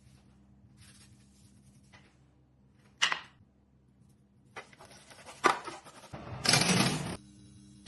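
Kitchen cooking and handling noises over a faint steady hum. A single sharp knock comes about three seconds in, then clicks and rattling, and a loud noisy burst about a second long near the end.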